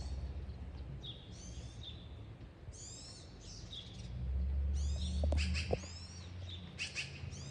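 A small songbird singing repeated short phrases of quick, high, downward-sliding notes, about one phrase every second. A low rumble and a couple of small knocks come a little past the middle.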